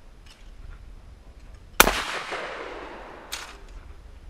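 A single shotgun shot about two seconds in, its report echoing and dying away over more than a second; a short, fainter crack follows about a second and a half later.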